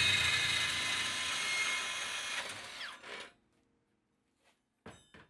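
Makita 40V XGT brushless cordless bandsaw cutting through square steel tube, a hiss of blade on metal that fades and stops about three seconds in as the saw winds down. A few short clicks follow near the end.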